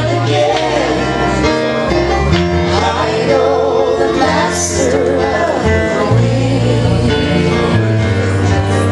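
Live country-gospel music with guitar playing, as a steady run of held notes and chords.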